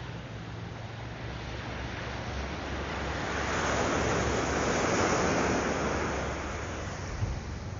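Surf breaking on a sandy beach: the wash of a wave swells up around the middle and dies away again. Low wind rumble on the microphone runs underneath.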